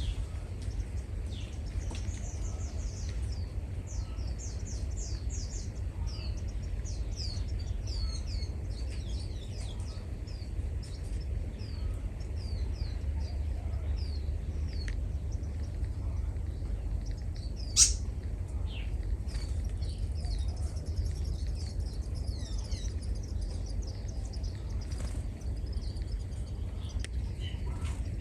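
Small birds chirping: many short, high, down-slurred chirps in quick runs, over a steady low rumble. A single sharp click about eighteen seconds in.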